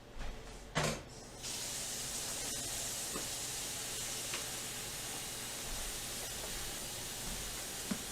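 A knock about a second in, then a steady high hiss of hot oil sizzling as the whole chicken fries.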